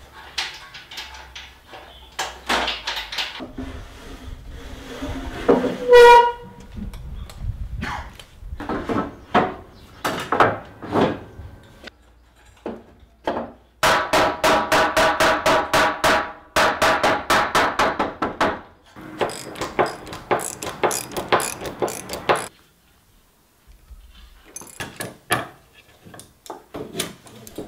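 Workshop sounds from assembling a timber workbench: knocks and clatter of timber and metal fittings, with a brief ringing metallic tone about six seconds in. Midway there are several seconds of rapid, even clicking at about four a second.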